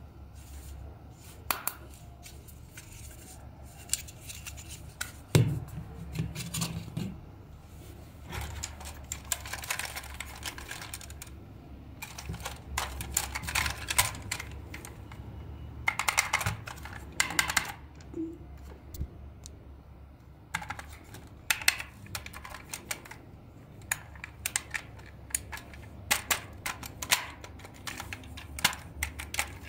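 Hard plastic toys being handled and turned over in the hands: scattered clicks, taps and light knocks in clusters, with quieter gaps between.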